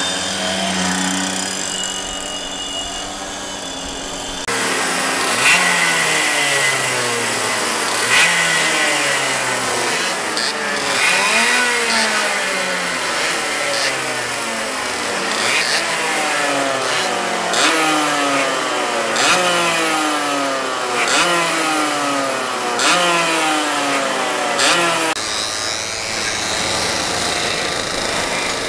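Racing kart engines revving, the pitch climbing and dropping back over and over, about once every second and a half to two seconds.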